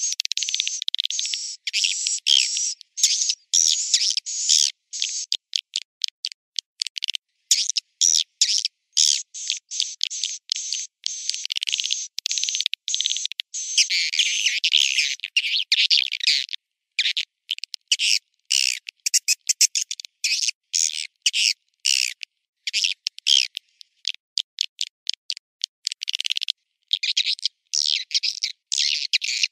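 Swiftlet call recording played as a lure for a swiftlet house: dense, rapid twittering and chirping of many swiftlets, thin and high with no low end. It runs in long unbroken stretches at times and elsewhere in quick choppy bursts separated by short gaps.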